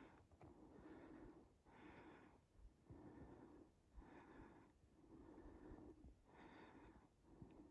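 A person breathing hard close to the microphone, faint, in and out about once a second: out of breath after a steep climb.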